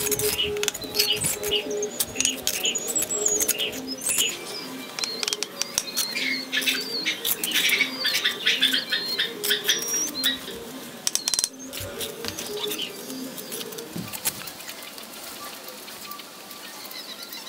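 A steel masonry trowel scraping mortar and tapping bricks into place: a busy run of sharp clicks and scrapes that thins out and grows quieter after about eleven seconds, with soft background music underneath.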